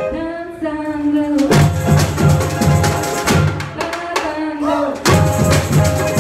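Samba bateria drumming: deep surdo bass drums beat steadily under snare and repinique drums. The bass beat drops out twice, at the very start and again about four seconds in, leaving a held pitched call before the full band comes back in.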